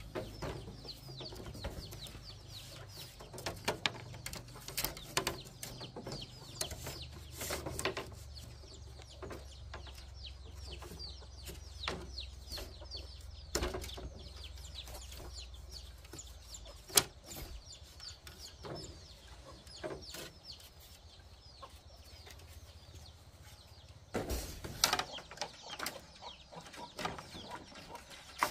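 Chickens clucking, with scattered sharp knocks and clatter and a low hum through roughly the first half.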